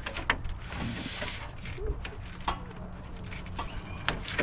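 Scattered clicks and knocks of hands working an old car horn and its bracket loose and pulling it out.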